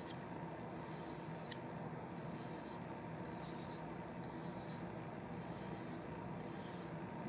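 Rubbing strokes across the wooden surface of a walnut rifle forearm, short scuffing swishes about once a second, over a steady low room hum.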